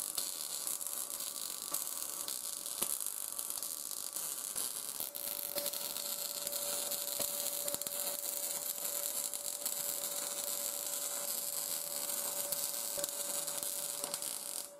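Wire-feed (MIG) welding arc hissing and crackling steadily as steel grill rods are welded, with scattered spatter pops and a steady hum underneath.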